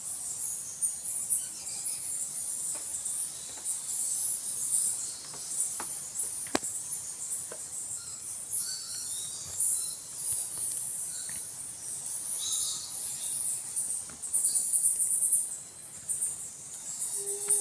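A steady, high-pitched chorus of chirping insects with a shimmering, pulsing edge, broken by a few faint clicks. Music comes in just before the end.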